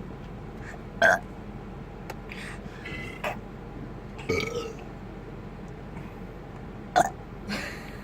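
A person burping on purpose: several short burps, with a loud one about a second in, softer ones in between and another loud one near the end.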